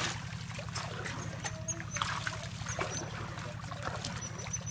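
Water splashing and trickling around a fishing net being hauled through shallow pond water, fish thrashing in the net, over a steady low drone.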